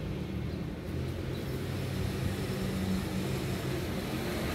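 A motor vehicle's engine running steadily, a low hum with road noise growing louder from about a second and a half in.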